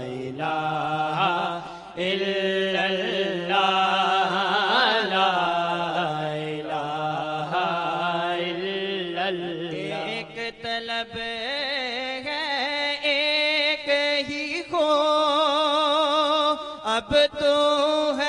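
Male voices chanting a hamd, an Islamic devotional hymn praising God, in long melodic held notes with a wavering pitch. About ten seconds in, a higher voice takes over from a lower one.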